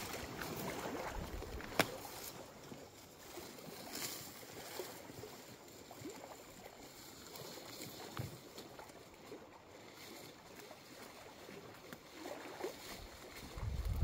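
Faint rustling and small crackles of leaves and twigs as a beaver moves off through thimbleberry undergrowth, with one sharp click about two seconds in.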